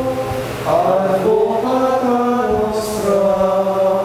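Background music of chanted singing: voices holding long, slow notes that move to a new pitch every second or so.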